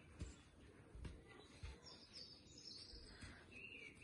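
Near silence: faint bird chirps, with a few soft thuds of hook kicks landing against a gloved hand held up as a target.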